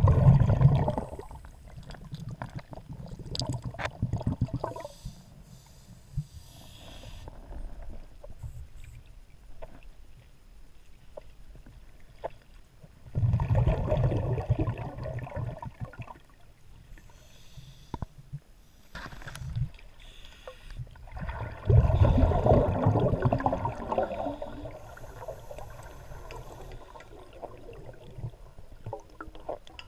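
Muffled underwater bubbling in several bursts of one to three seconds each: a scuba diver's exhaled breath bubbling out of the regulator, heard through an underwater camera.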